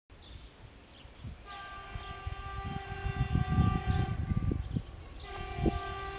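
Horn of a Renfe Class 599 diesel multiple unit sounding two long blasts: the first about a second and a half in, held for about two and a half seconds, the second starting about five seconds in. Underneath is an irregular low gusty rumble.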